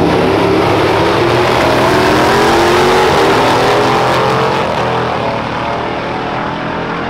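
Two drag cars, a twin-turbo LSX V8 1973 Chevrolet Impala donk and a supercharged Jeep Grand Cherokee Trackhawk, launching and running at full throttle down the strip. The engine note rises as they accelerate, then fades after about four and a half seconds as they pull away.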